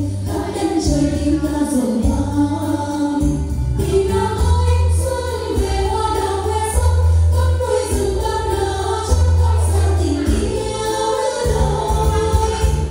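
Dance song for a Thái fan dance: voices singing a melody over music with a deep, steady bass line.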